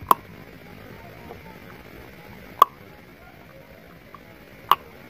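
Puppies play-fighting, giving three short, sharp yips about two seconds apart.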